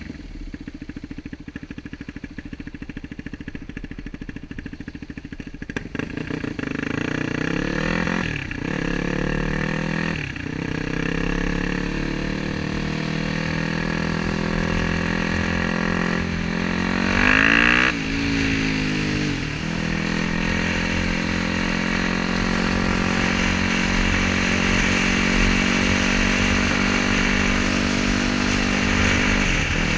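Yamaha WR426F's single-cylinder four-stroke engine idling with a steady low pulse, then pulling away about six seconds in and accelerating through the gears. The engine note rises and drops at each of several upshifts, peaks in one brief higher rev about two-thirds of the way through, and then settles into steady cruising.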